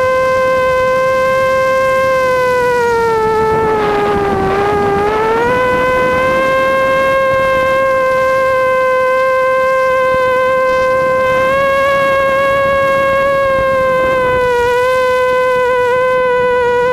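FPV quadcopter's electric motors and propellers whining at a steady pitch. The pitch dips lower about four seconds in, climbs back a second later, and wavers slightly again near the end.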